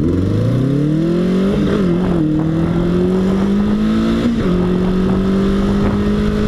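A 36-horsepower motorcycle's engine accelerating through the gears. The pitch climbs and then drops with an upshift about a second and a half in, climbs again, drops at a second shift about four seconds in, and then holds nearly steady.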